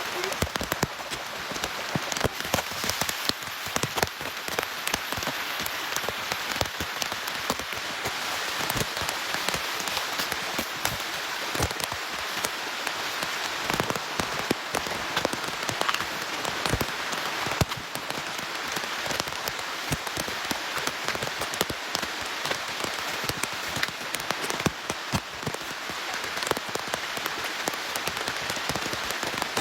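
Steady rain falling, with a dense patter of individual drops striking surfaces close by.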